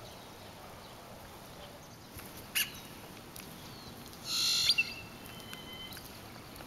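A bird calls once about four seconds in: a brief bright chirp, then a short high whistled note, over a faint steady hiss. A single sharp click comes a little earlier.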